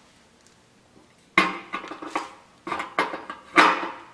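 Metal satellite dish clanking and rattling as it is handled, a run of sharp metallic knocks that starts over a second in.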